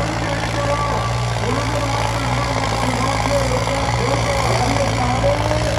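Diesel tractor engine running at a steady, unchanging pitch.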